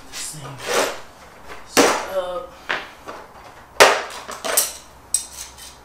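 A plastic tool case being unlatched and opened and the metal strut spring compressor tool inside it handled: a few sharp clunks and knocks with scraping between them, the loudest about four seconds in.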